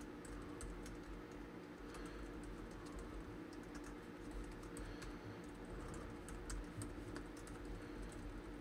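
Typing on a computer keyboard: a quick, irregular run of faint key clicks over a low steady hum.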